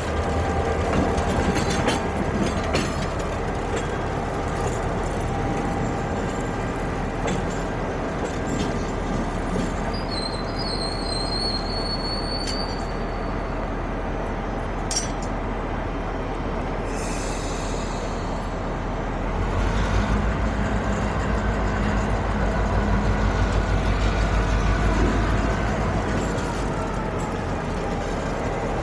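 Soo Line diesel locomotive running light through a rail yard, its engine droning steadily, with a thin, high wheel squeal for a few seconds about ten seconds in. About twenty seconds in the engine throttles up and runs louder and throbbing as the locomotive pulls, then eases back near the end.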